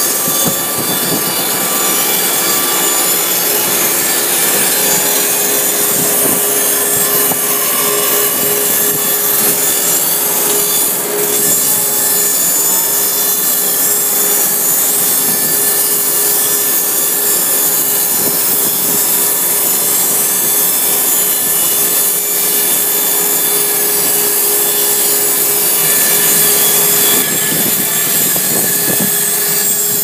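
Electric mobile band sawmill (R100) cutting lengthwise through a log: the band blade saws steadily through the wood with an even, continuous rasp, and a steady hum runs under it.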